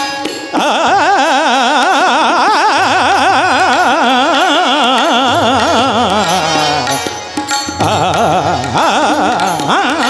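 A male devotional singer holds a long wordless vowel with fast, wide wavering ornaments over tabla. The line sinks and breaks off about seven seconds in, then resumes with a quick upward glide near the end.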